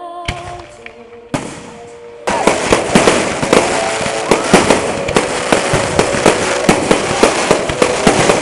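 Aerial fireworks display: from about two seconds in, a loud, dense run of bangs and crackles as shells burst in quick succession.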